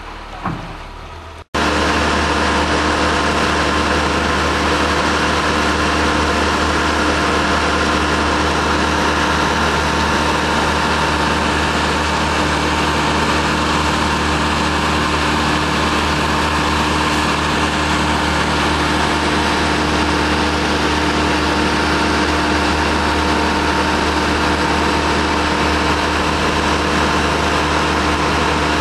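An engine running at a steady, unchanging speed, loud and constant. It cuts in abruptly about a second and a half in, replacing quieter outdoor background.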